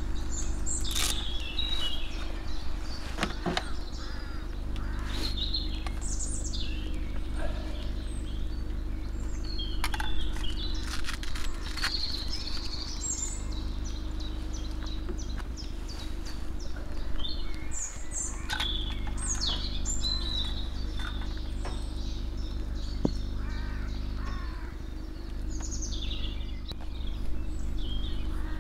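Woodland birds chirping and calling on and off, over a steady low hum. Now and then a sharp click or knock as fishing rods and tackle are handled.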